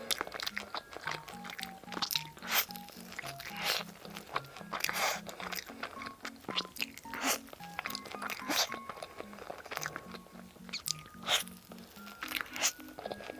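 Crisp crunching bites and chewing of bánh ruốc, a pork floss snack, repeated many times over background music with a simple melody of short, even notes.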